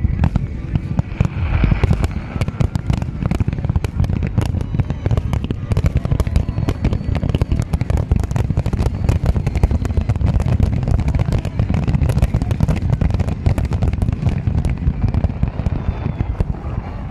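Fireworks display: a continuous barrage of deep booming bursts and sharp cracks, many each second, with no break.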